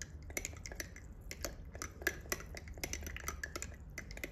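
A stirring stick clicking and tapping against the inside of a small drinking glass as dilute sulfuric acid electrolyte is stirred: many quick, light, irregular clinks.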